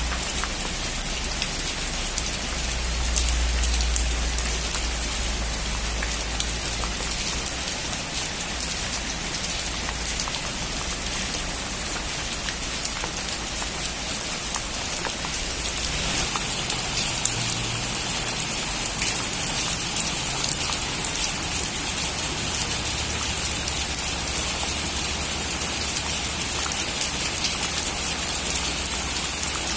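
Heavy rain drumming steadily on a metal roof, with a low rumble of thunder dying away over the first several seconds. About halfway through the rain grows louder and hissier.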